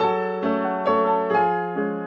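Background piano music: notes and chords struck about twice a second.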